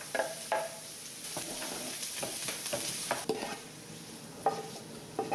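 Chopped onion and garlic sizzling in olive oil in a frying pan, a steady hiss. Several short scrapes and clicks of a knife and utensils against the cutting board and pan are heard over it.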